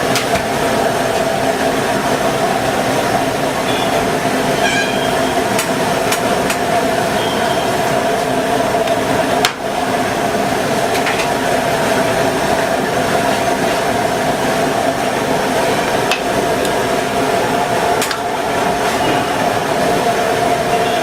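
A steady, loud mechanical roar with a constant hum running underneath, broken a few times by short sharp clinks and knocks.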